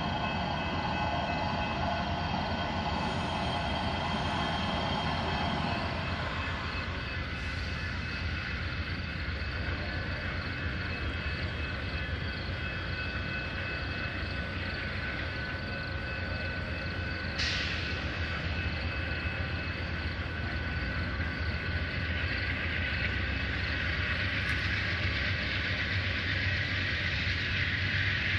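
Amtrak passenger train with diesel locomotives pulling out of the station after the highball, a steady rumble of engines and rail noise as it gets under way, with a brief sharp click twice.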